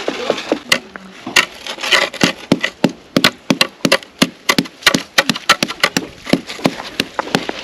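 Frozen stream ice being struck and chipped at: a run of sharp, irregular knocks, about three or four a second.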